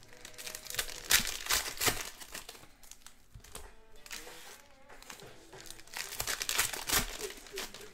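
Plastic trading-card pack wrappers crinkling as they are handled and torn open, in loud bursts about a second in and again around six to seven seconds in. Faint music plays underneath.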